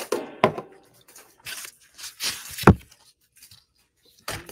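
A pet tearing at a carpet: several rough ripping noises, with a dull thump about two and a half seconds in.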